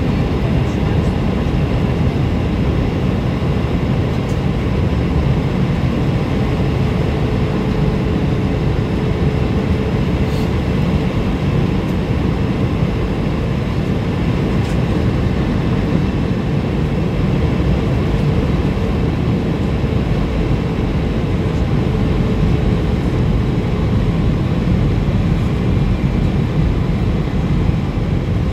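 Steady cabin roar of an Airbus A320-232 in descent, heard inside the cabin: a rush of airflow over the fuselage mixed with the hum of its IAE V2500 engines, with a faint steady whine that comes and goes.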